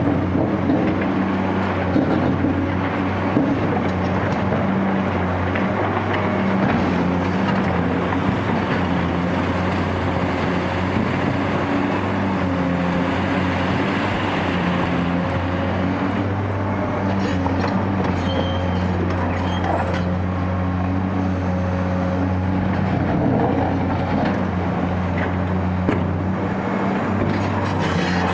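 Caterpillar 385C UHD demolition excavator's diesel engine running steadily under load, with a few short knocks from the work.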